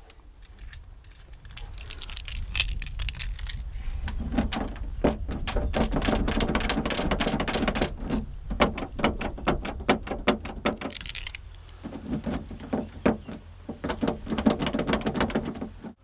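A bunch of keys jangling and clicking as keys are tried in a Fiat Panda 4x4's door lock, in irregular bursts of rattling with a short lull near the middle.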